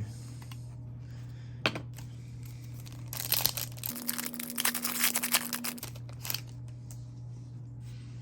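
Hockey card pack wrapper crinkling and tearing open, with a dense crackle of about three seconds in the middle after a single sharp click near the start.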